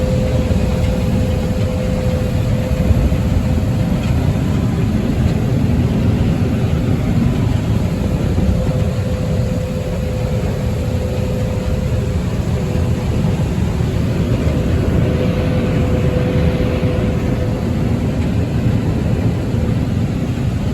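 Combine harvester running steadily while picking corn: a dense, even rumble of engine and machinery with a constant hum tone over it.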